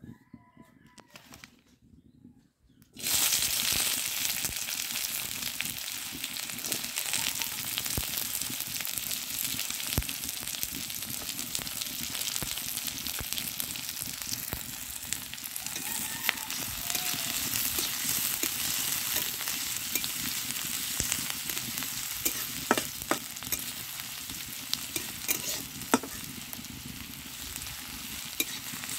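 Sliced onions hitting hot oil in an iron kadai about three seconds in, then sizzling steadily as they fry. Sharp clicks of a metal spatula on the pan come now and then.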